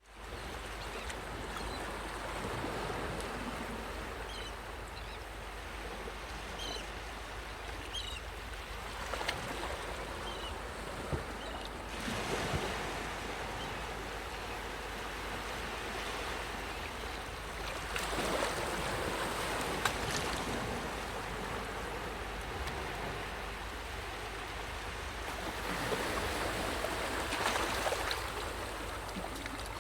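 Sea waves washing onto a beach in a steady rush, swelling louder as a wave breaks every several seconds.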